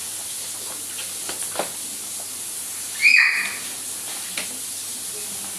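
Food sizzling in a frying pan: a steady hiss with a few light clicks. A short, loud, high-pitched squeak comes about three seconds in.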